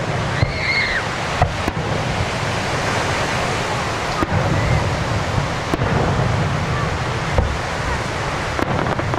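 Fireworks display: a continuous dense rumble and crackle with about five sharp bangs spread a second or more apart, and a short rising-then-falling whistle about half a second in.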